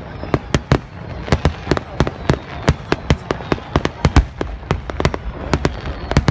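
Aerial fireworks going off in a rapid, irregular barrage of sharp bangs, about four a second, over a low rumble.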